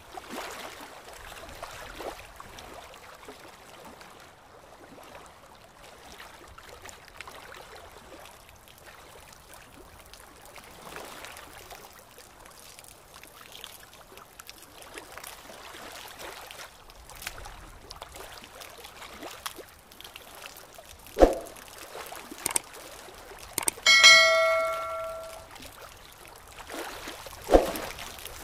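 Water trickling steadily in a goldfish aquarium. Two sharp knocks come about three-quarters through and near the end. Between them is a bright bell-like ding that rings on for over a second.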